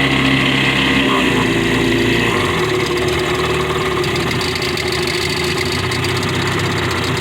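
40 horsepower Mercury outboard motor running at idle. Its engine note drops about a second in and again shortly after, then idles steadily.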